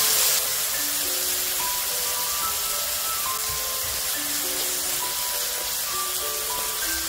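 Chopped kimchi sizzling in a nonstick frying pan as it is stir-fried, a steady hiss that eases a little about half a second in. Light background music with short melody notes plays over it.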